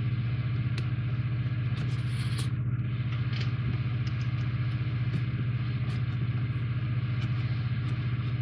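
A steady low hum runs throughout. Over it come faint scratches and light clicks as a hobby knife slits the round tape seals on a cardboard model-kit box.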